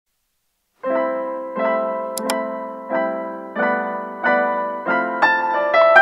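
Background piano music starting about a second in: gentle chords struck about every 0.7 s, each fading before the next, with a run of higher notes near the end.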